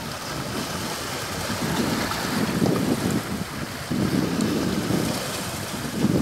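Sea waves washing onto a beach, with gusts of wind buffeting the microphone in uneven low rumbles that grow stronger about two seconds in and again near the end.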